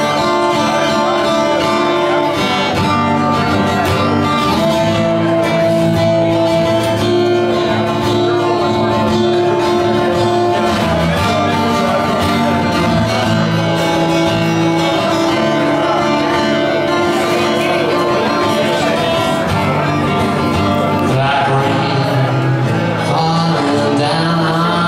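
Acoustic guitar played live, chords ringing on without break through an instrumental passage of the song.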